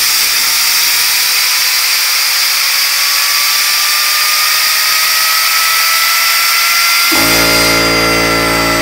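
Air-driven rotor of a Sperry train gyroscope running on compressed air: a loud hiss with a whine that slowly rises in pitch as the rotor speeds up. About seven seconds in, a steady low hum with several tones cuts in suddenly.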